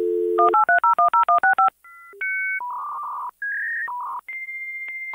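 Dial-up modem connecting: a steady dial tone, then a quick run of about ten touch-tone digits, then the modem's handshake tones, changing in pitch every second or so and ending in a long steady high answer tone.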